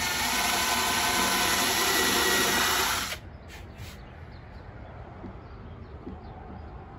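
Cordless drill running at steady speed, boring into a plywood panel: a steady motor whine over a rush of noise that stops abruptly about three seconds in.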